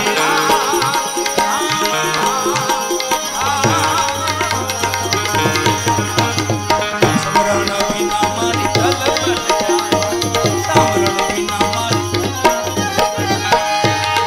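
Gujarati devotional bhajan (santvani) music: tabla drumming under a wavering melody line, with a low sustained note joining about three seconds in.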